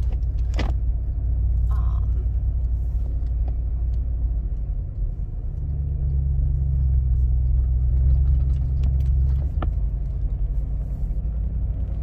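Car's engine and exhaust rumbling low, heard from inside the cabin while driving; the car runs loud because its tailpipe bracket is loose. The engine note steadies and grows a little louder from about five and a half seconds in until nearly ten seconds.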